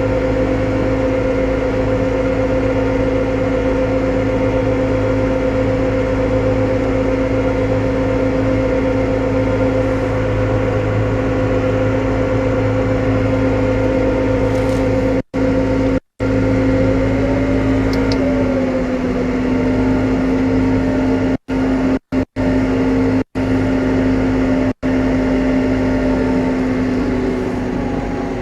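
New Holland T5.120 tractor's diesel engine running steadily under ploughing load at about 5.5 km/h, a constant hum with a slight wobble in pitch a little past the middle. The sound cuts out completely for brief moments several times in the second half, recording dropouts rather than the engine.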